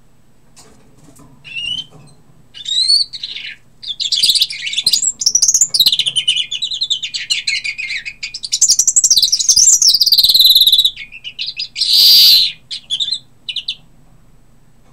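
European greenfinch singing: short twittering phrases that run into a long, continuous trilling stretch, with a harsh buzzing note near the end.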